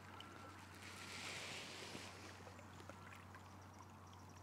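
Quiet lakeside ambience with faint water lapping over a steady low hum. About a second in, a soft watery rush rises and fades after about a second.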